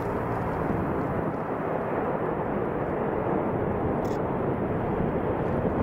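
The Antonov An-22's four Kuznetsov NK-12 turboprops with contra-rotating propellers running steadily as the aircraft rolls along the runway: a dense, even drone.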